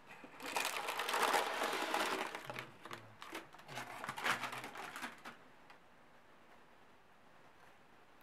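Baking parchment paper crinkling and rustling as it is lifted out of an air fryer basket, for about five seconds, then only faint room tone.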